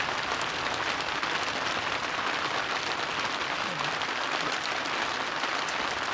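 Steady, dense crackling hiss, with a short faint voice about four seconds in.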